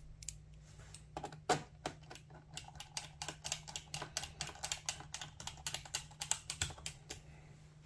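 Quick, light clicking and ticking of a precision screwdriver turning a screw into the plastic bottom case of a Dell Inspiron 15 5567 laptop. It goes at several clicks a second, with a few sharper clicks among them.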